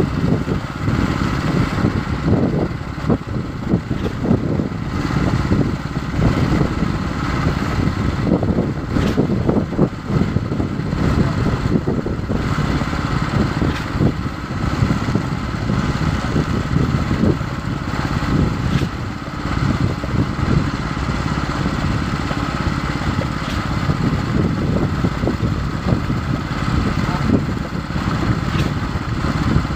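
Concrete pump running steadily, its engine a constant low drone, with a few short knocks over it.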